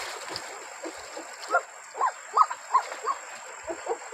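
A string of short calls, each rising and then falling in pitch, about three a second, starting about a second and a half in, over a faint wash of river water.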